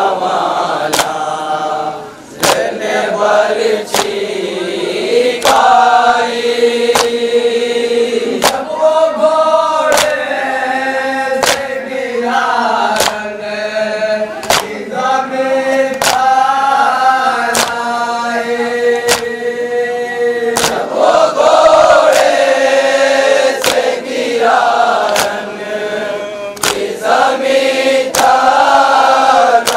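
Group of men chanting a Shia nauha (Muharram lament) together, with sharp hand slaps on the chest (matam) in a steady beat about every second and a half.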